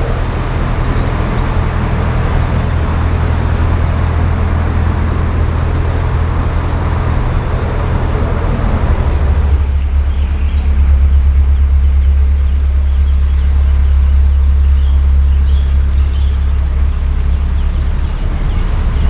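Narrowboat diesel engine running steadily under way. About nine seconds in the engine note deepens and grows stronger while a hiss above it drops away.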